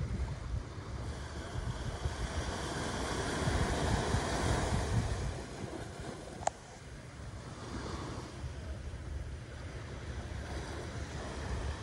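Small waves breaking and washing up a sandy shore, one wash swelling louder about four seconds in, over a steady low rumble of wind on the microphone. A single short click about six and a half seconds in.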